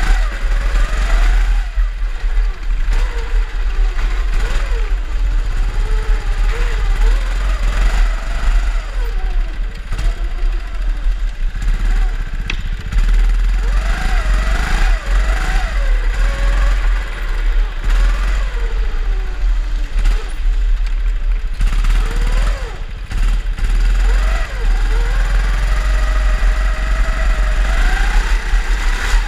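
Drift kart engines revving up and down again and again, their pitch rising and falling every second or so, over a heavy low rumble.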